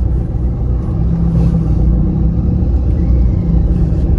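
Steady low rumble of vehicle engines and road noise while moving slowly, with a motorcycle running close alongside.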